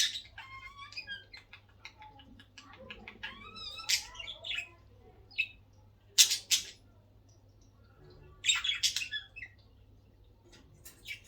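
Budgies chattering and warbling in quick chirps, with loud, sharp squawks about four, six and nine seconds in.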